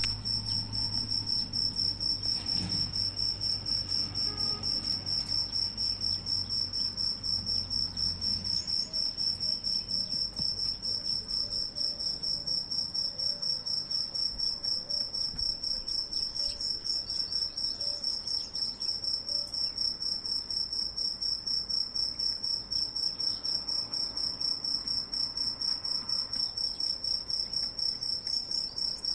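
Cricket chirring: one high, steady pitch pulsing rapidly and evenly, with a low rumble under it for the first eight seconds or so.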